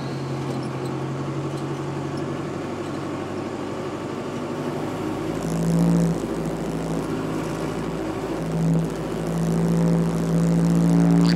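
Jeep engine running as it drives along a muddy trail, heard from inside the cabin: a steady drone that revs up about halfway through, eases off, and rises again near the end.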